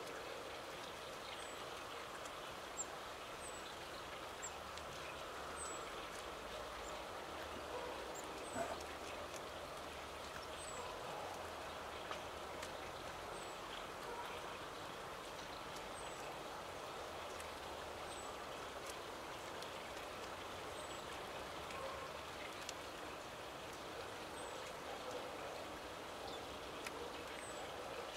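Steady rushing outdoor background noise, with faint, very high, short bird chirps about every one to two seconds and a few soft clicks.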